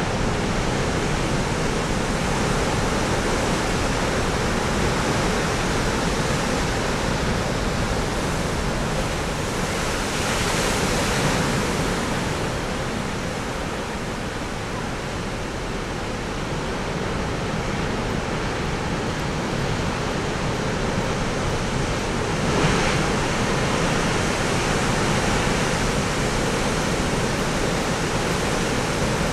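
Heavy storm surf breaking, a continuous rushing noise of big waves. It swells louder about ten seconds in and has a brief peak a little after twenty-two seconds.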